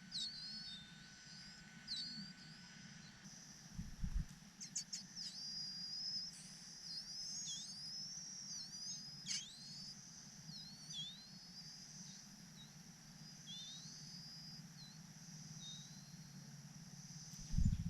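Small birds chirping: a busy run of quick, high calls that slide down and up, thickest through the middle. A dull thump comes about four seconds in and another near the end.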